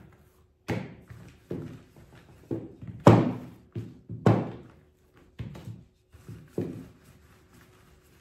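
Rolling pin working a round of dough on a board: a run of knocks and thumps at uneven spacing, roughly one a second, the loudest about three seconds in.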